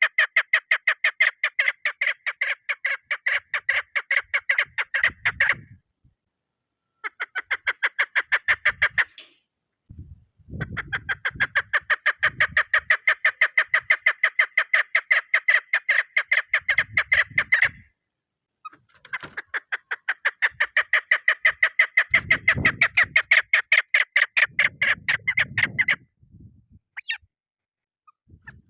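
Female chukar partridge calling: a fast, even series of clucking notes, given in four long bouts with short pauses between them.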